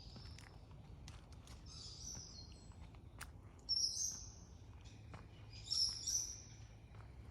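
Wild birds calling: short high-pitched chirping calls, the loudest a little before the halfway point and again about six seconds in, over a low steady outdoor rumble.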